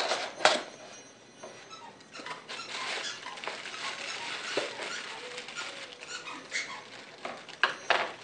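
Unpacking a cardboard box: two sharp snaps at the start, then plastic packing wrap crinkling and rustling as it is pulled out, with a few more sharp clicks near the end.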